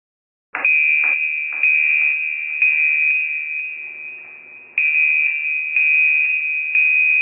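An alarm sound file played through the computer: a loud, high electronic tone that re-sounds roughly once a second. It is the detection software's alert that a suspicious unattended object has been flagged. It starts about half a second in and cuts off suddenly when the program is stopped.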